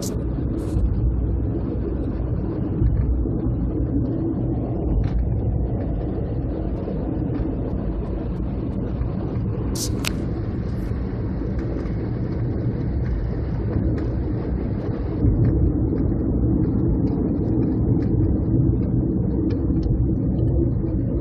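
Steady low rumble of a car's engine and tyres heard from inside the cabin while driving, getting a little louder about fifteen seconds in. A few brief sharp clicks, the clearest about ten seconds in.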